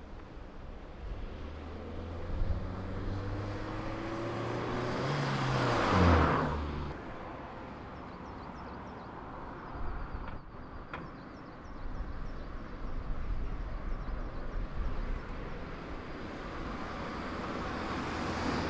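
Kia Picanto city car driving past: its engine note rises as it accelerates, then it goes by loudly about six seconds in, the pitch dropping as it passes. After quieter road noise, the car approaches again near the end with its tyre noise swelling.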